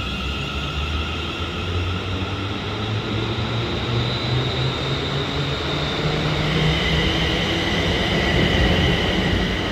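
Class 380 Siemens Desiro electric multiple unit pulling out of the station. Its hum and whine rise steadily in pitch and grow louder as it picks up speed.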